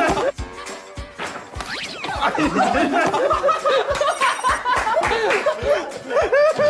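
People laughing in short, repeated bursts, with a short steady tone about half a second in.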